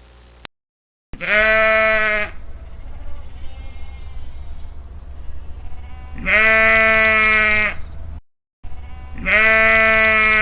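Sheep bleating: three long bleats of steady pitch, a few seconds apart, over a low steady rumble.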